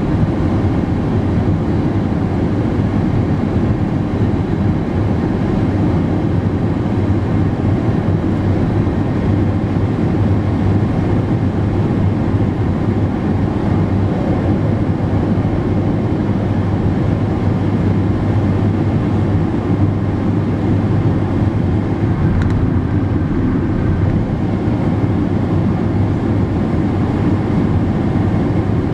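Steady road and wind noise of a car travelling at highway speed: a constant low rumble that does not change.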